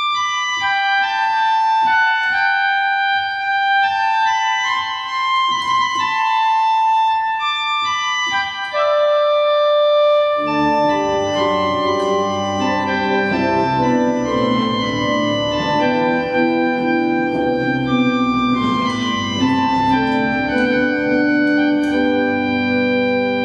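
Organ playing a hymn tune in held, sustained notes. A single higher line carries the tune at first, and lower notes join about ten seconds in to fill out full chords.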